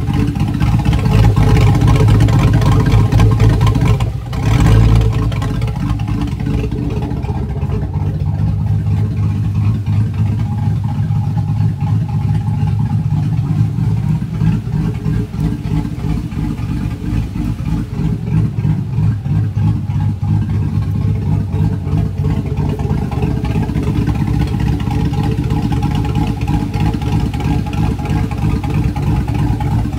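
Chevrolet Tahoe's V8 engine running steadily, a little louder in the first few seconds, with a brief surge about four to five seconds in.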